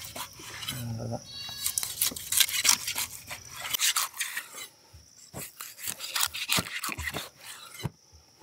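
Big knife sawing through a whole streaked Spanish mackerel to cut it into steaks: quick, irregular rasping strokes through skin and flesh, pausing briefly near the end.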